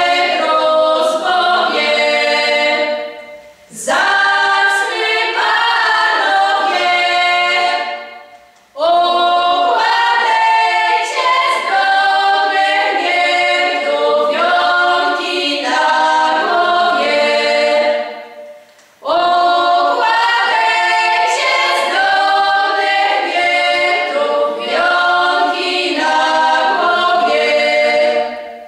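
Women's folk singing group singing a cappella, several female voices together in sustained phrases with three short breaks between them.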